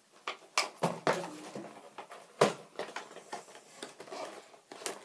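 Irregular clicks and knocks of hard plastic parts being handled and set down, with the loudest knock about two and a half seconds in.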